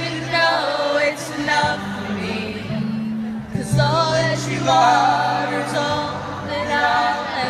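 Live music in an arena, heard from the audience seats: a man singing over acoustic guitar, with steady held low notes beneath the voice.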